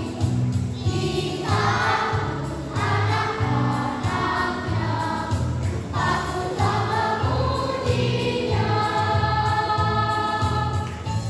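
Children's choir singing together over an accompaniment with a steady, evenly repeating bass beat; near the end the voices hold long sustained notes.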